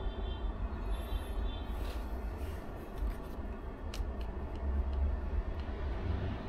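A steady low rumble of background noise, with a few light clicks about halfway through as a multimeter probe tip is set on the pins of an ECU circuit board.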